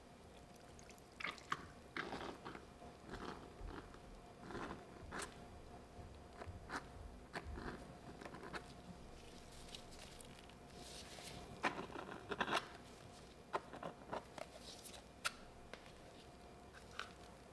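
Wet sponge soaked in blue liquid being squeezed by hand: faint, irregular squelches and crackling of the soaked foam, busiest about two-thirds of the way through.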